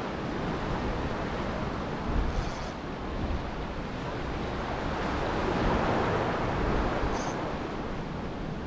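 Wind noise on the microphone over the steady wash of ocean surf. The surf swells louder for a couple of seconds past the middle.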